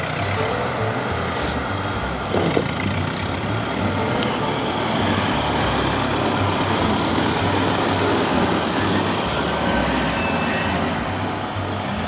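Small vintage farm tractor's engine running steadily as it drives across packed snow.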